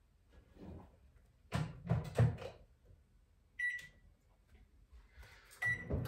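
Microwave oven being loaded and set: a few knocks and clunks about a second and a half in as the heating pad goes in, then two keypad beeps, one about three and a half seconds in and a shorter one near the end.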